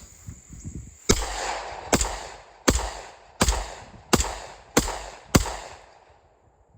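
.45 ACP pistol firing seven shots of 230-grain full metal jacket ammunition in steady succession, about one every 0.7 seconds, each shot ringing out briefly after it.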